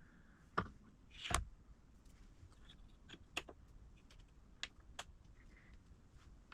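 A few faint, scattered clicks and knocks of metal being handled at a benchtop milling machine vise, as a workpiece is set against the vise stop and clamped, with the spindle not yet running.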